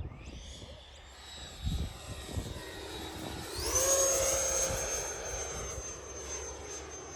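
Electric ducted-fan whine of an E-flite Viper 90mm EDF jet in flight; about three and a half seconds in the pitch jumps sharply up and holds as the throttle is opened, and the sound is loudest just after.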